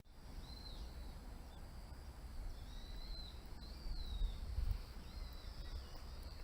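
Outdoor riverside ambience: a steady low rumble with several faint, high bird calls that rise and fall, a few of them about two and a half to four and a half seconds in.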